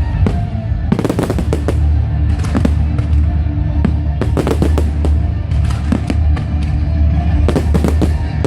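Fireworks exploding in quick succession, sharp bangs and crackles coming in clusters every second or two, over music with a heavy, steady bass.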